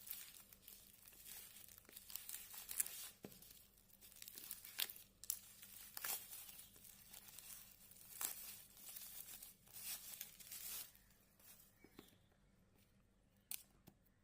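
Packaging being torn and crinkled by hand, a run of scratchy rustles and clicks that dies down about eleven seconds in.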